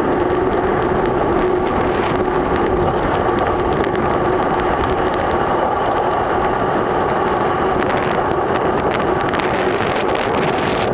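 Tropical storm wind blowing hard and steadily across the microphone, with a constant hum running underneath.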